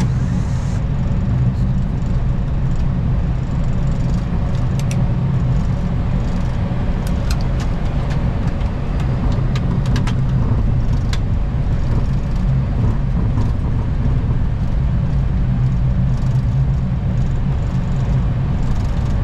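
Steady low rumble and hum inside a Boeing 737-800 cockpit, its engines and air systems running, with a handful of short sharp clicks near the middle.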